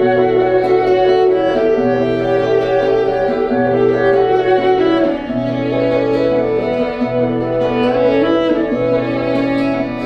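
Instrumental music: held, sustained melody notes over a low note that repeats in even pulses about every second and a quarter.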